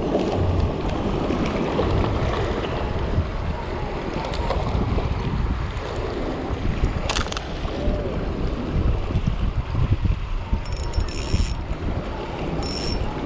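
Wind buffeting the microphone over sea waves washing against shore rocks, with a sharp click about seven seconds in.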